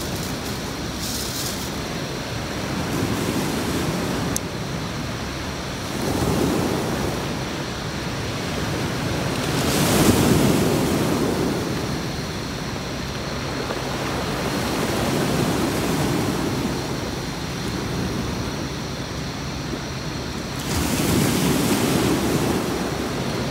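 Sea waves breaking on a beach: a steady wash of surf that swells and falls back every few seconds, with the loudest surges about ten seconds in and near the end.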